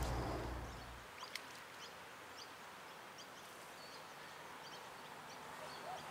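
Quiet lakeside ambience with scattered short, high bird chirps; a low rumble fades out in the first second and there is one brief click.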